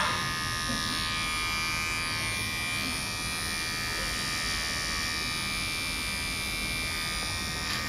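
Cordless electric pet clipper buzzing steadily as it clips the long belly hair of a shih tzu.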